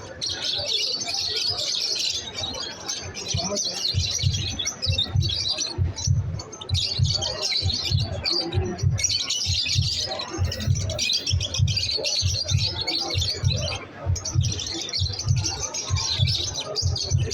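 A crowd of caged lovebirds chirping continuously in many overlapping high calls, with low thumps about twice a second beneath them.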